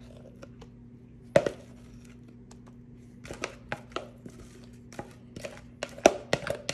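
A silicone spatula scraping and knocking against a mixing bowl as thick whipped pie filling is scraped out. The result is a series of sharp taps: a strong one about a second in, then a quick irregular run of them in the second half.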